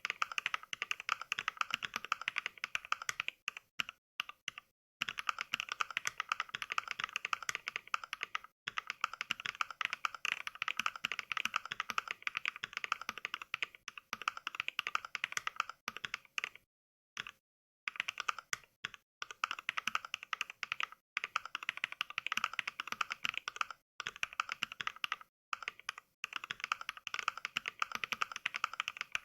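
Fast, continuous mechanical-keyboard typing clicks, not from a real keyboard but from the Mechvibes 'NK Cream' sound pack, which plays a sample of a NovelKeys Cream switch for every keystroke. Runs of rapid keystrokes are broken by a few short, completely silent pauses.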